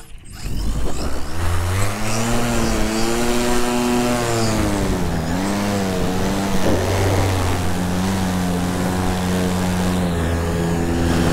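Electric paramotor's motor and propeller spinning up to takeoff thrust: a loud, pitched hum that climbs in the first couple of seconds, dips and recovers twice, then holds steady.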